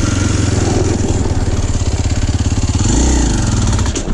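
Kawasaki KLX230's single-cylinder four-stroke engine running while the bike rides along, with a steady throb. About three seconds in, the engine note dips and climbs again.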